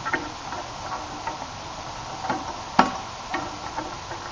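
Rammer knocking in the bore of a demi-falconet cannon as the charge is rammed home: a handful of short sharp knocks, the loudest about two-thirds of the way through.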